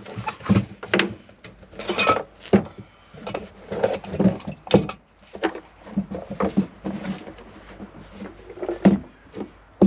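Handling noises of a small brass camping stove and its leather pouch: irregular clicks, knocks and rubs of metal and leather as the stove is drawn out and set down on wooden boards.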